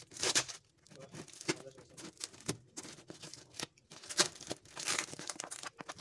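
Packing tape and plastic wrap on a cardboard box being cut and torn open with a box cutter: irregular ripping and crinkling in short spurts, the sharpest rip about four seconds in.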